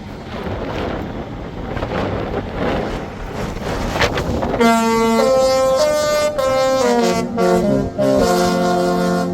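Disney Cruise Line ship's musical horn playing a tune. Loud held notes step up and down in pitch, starting about four and a half seconds in after a few seconds of rushing wind and background noise.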